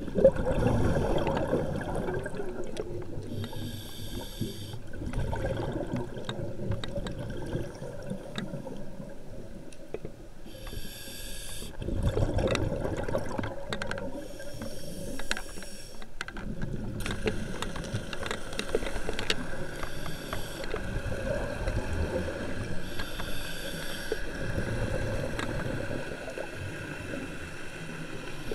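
Scuba diver breathing through a regulator underwater: a hissing inhalation about every six to eight seconds, each followed by a longer low bubbling burst of exhaled air.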